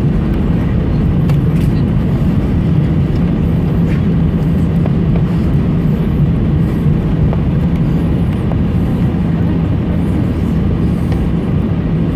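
Airbus A319 airliner's cabin noise as it rolls off the runway after landing: a steady low rumble with an even engine hum, heard from inside the cabin.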